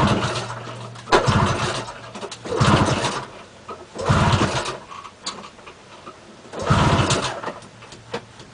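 A 1992 Ski-Doo Safari's 377 fan-cooled twin two-stroke being pulled over on its recoil starter about five times, each pull a short burst of cranking that doesn't catch and run. The owner puts the hard start down to too much prime.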